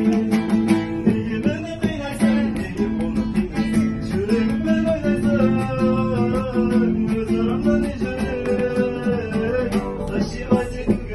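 Acoustic guitar being played, steady chords under a wavering melody line that sounds like a voice singing along.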